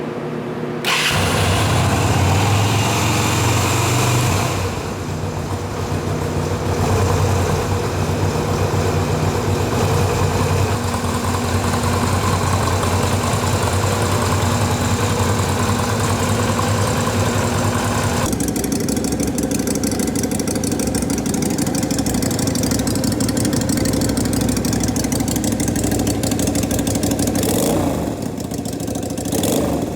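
Yamaha Virago 250 (XV250) air-cooled V-twin engine running at a steady idle through its exhaust, starting about a second in. About 18 seconds in, the sound changes character, with more weight in the low-middle range.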